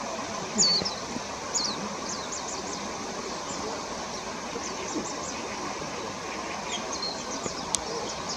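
Small songbirds chirping in short, high, downward-sweeping calls, two louder ones in the first couple of seconds and a quick run of chirps near the end, over a steady rushing background noise.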